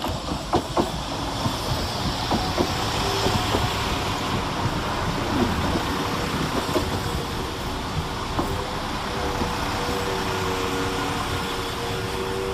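West Midlands Railway Class 172 Turbostar diesel multiple unit arriving at a platform, running with a steady rumble. A few sharp clicks of wheels over rail joints come in the first seconds, and a steady whine comes in during the second half.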